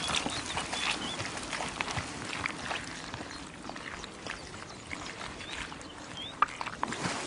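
Wild boars wallowing in a muddy puddle: a busy run of short squelching and splashing noises.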